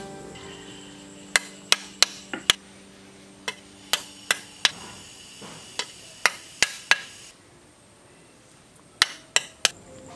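Sharp taps of a hand tool knocking clay-mortared bricks into place on a brick stove wall, in short runs of a few quick strikes.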